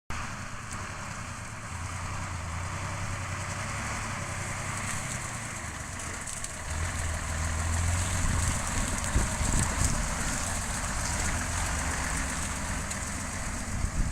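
Diesel engine of large harvest machinery running steadily under a constant hiss, growing somewhat louder about halfway through.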